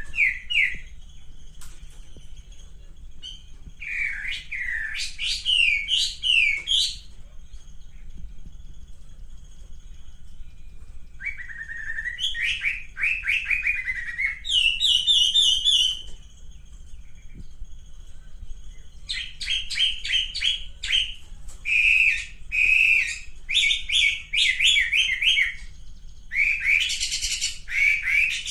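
Male wambi singing in phrases of rapid, ringing chirps a few seconds long, separated by short pauses. This is the bird's territorial song of the kind used as a lure recording to provoke other birds into singing. A faint steady hum runs underneath.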